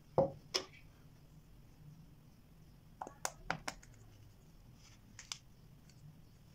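Plastic parts of an LED bulb knocking and clicking as they are handled: two knocks near the start, then a quick run of clicks about three seconds in as the diffuser dome is pressed onto the glued base, and one more click later.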